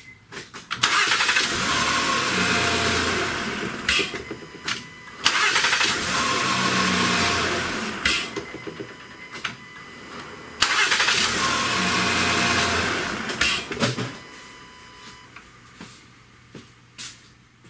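Honda Odyssey's 3.5-litre V6 being started three times in a row, each start coming on suddenly and running for a few seconds before fading. There is no grinding from the freshly cleaned and regreased starter: its gear no longer drags on the flywheel.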